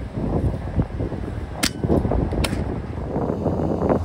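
Two sharp cracks of PCP air rifle shots, a little under a second apart, over a low rustle.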